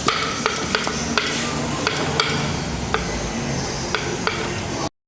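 Steady, noisy clatter with repeated sharp metallic clicks and knocks as tools work on the strut's top mounting bolts; it cuts off abruptly near the end.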